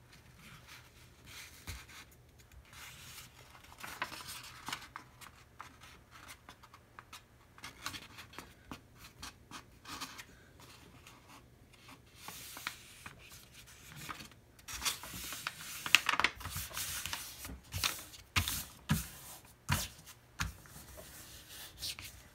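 Sheet of printer paper being folded diagonally by hand on a tabletop: irregular rustling and sliding of the paper, with louder rubbing and crinkling in the second half as the fold is pressed and creased.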